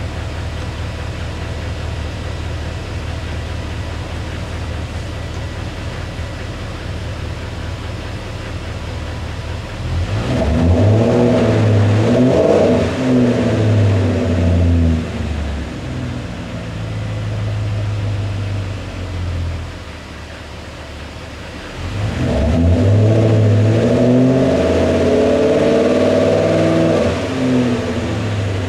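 BMW E39 540i's 4.4-litre V8 heard through its quad exhaust, running on LPG. It idles, then is revved in two spells of rising and falling revs, about ten seconds in and again a little past twenty seconds, dropping back to idle in between.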